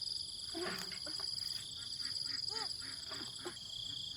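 Steady high-pitched insect chorus with a fine pulsing, with a few faint short voice-like calls lower down now and then.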